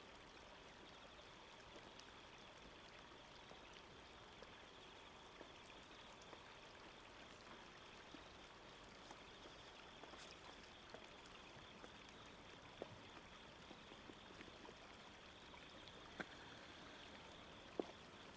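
Near silence: a faint, steady hiss like flowing water, with a few soft ticks.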